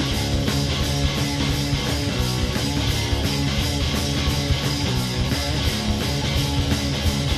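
Rock band music: strummed guitar chords over a steady, driving beat.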